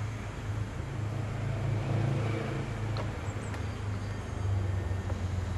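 CFL class 2000 electric multiple unit standing at the platform, giving a steady low hum from its onboard equipment. A couple of faint clicks come about three seconds in.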